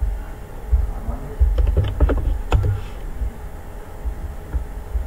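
Computer keyboard keystrokes as a password is typed: a quick run of sharp clicks from about a second and a half in to just past two and a half seconds, over a low rumble.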